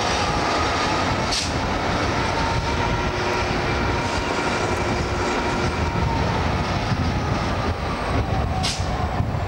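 Class 59 diesel locomotive 59101, its EMD two-stroke V16 engine running steadily as it hauls the train, heard from the coach behind together with the continuous rumble of the wheels on the track. Two brief high hiss-like noises, about a second in and near the end.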